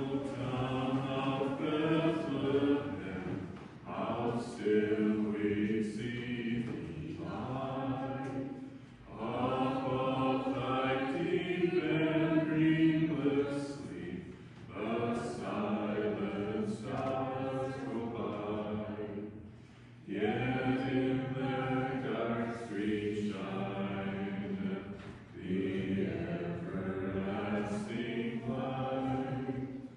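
Choir singing, in phrases of two to four seconds with short pauses between.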